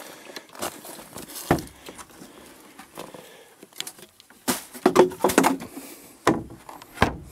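A plastic wheelie bin being handled: the lid knocks and rattles as it is lifted open, with a busy run of knocks about halfway through. Two heavy thumps near the end as the lid is let down shut.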